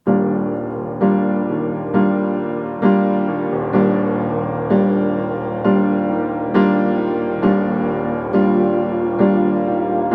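Slow piano music: a chord struck about once a second, each fading before the next.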